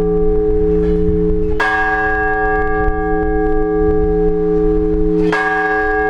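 Orthodox church bells ringing. A bell is struck twice, a little under four seconds apart, and each stroke rings on over the steady hum of the bells still sounding.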